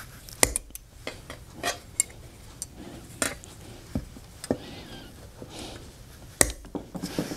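Wire coat hanger being worked with pliers to cut off its hook: scattered clicks and small metal clinks, the sharpest about six and a half seconds in.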